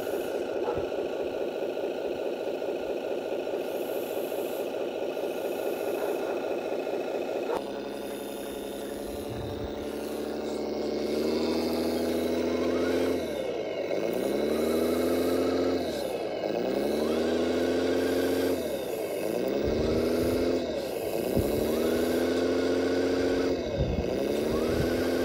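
Engine sound of a radio-controlled 6x6 MAN dump truck: a steady running note, then a deeper one whose pitch repeatedly drops sharply and climbs back, about five times in the second half.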